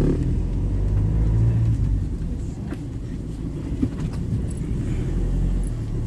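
Car engine and tyre rumble heard from inside the cabin while driving, a steady low drone with a couple of faint clicks near the middle.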